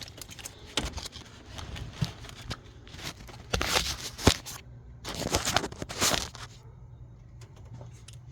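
Ratchet wrench clicking in two short bursts a little past midway as cylinder head bolts are run down a little at a time, with scattered metal clicks of tools and sockets.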